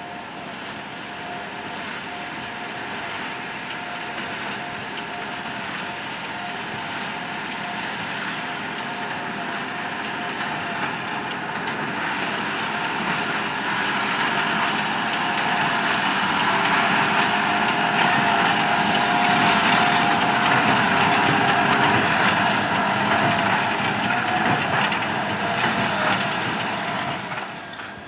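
John Deere 6155R tractor's six-cylinder diesel running under load, pulling a Massey Ferguson 2240 large square baler that clatters as it picks up and compresses hay. The sound grows steadily louder as the outfit comes closer, is loudest about two-thirds of the way through, and drops away sharply just before the end.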